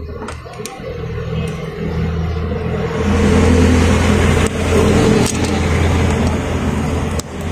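A motor vehicle engine running close by, a steady low rumble that builds over the first few seconds, is loudest in the middle and drops off near the end. A few light clicks sound over it.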